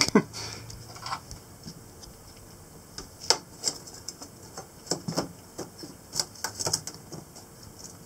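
Irregular clicks and taps as a mesh no-see-um bug screen is pressed and fitted by hand into a bronze portlight's rim, thickest about halfway through.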